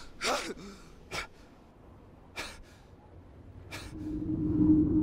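A man gasping for breath in a few short, ragged gasps about a second apart, winded after a sword fight. Near the end a low steady droning tone swells in.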